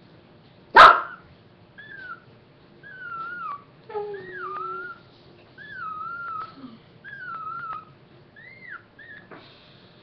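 Mother Pomeranian whining while nursing: about eight high, thin cries, each bending up then down, at roughly one a second. One sudden loud sound about a second in.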